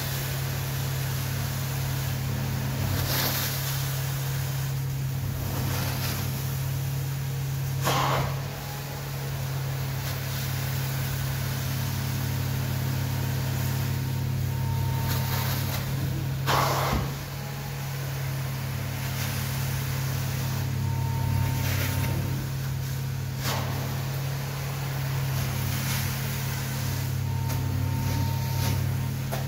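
Hot-water carpet extraction: the steady drone of the extraction machine's vacuum pulls through the wand as it sprays and sucks solution from the carpet. A rush of air and water comes every couple of seconds as the wand is drawn across, loudest about eight and sixteen seconds in.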